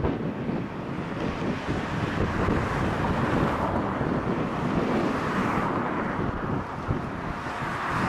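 Strong wind rushing and buffeting the microphone, a steady noise with gusty low rumble.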